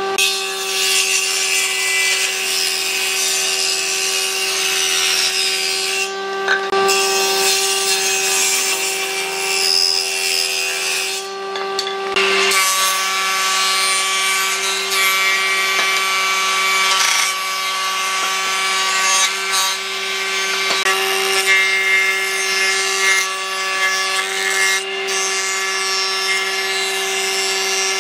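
An electric power tool works wood: a steady motor whine over a coarse abrasive hiss. It eases off briefly three times, about 6, 12 and 25 seconds in.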